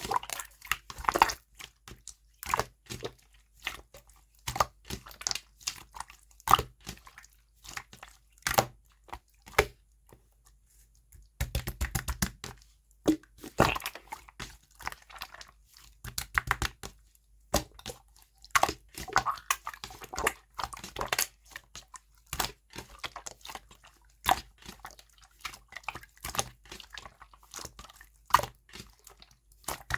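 Clear slime being squeezed and pressed by hand, giving irregular sticky clicks and pops. After a short pause about a third of the way in, there is a quick flurry of clicks.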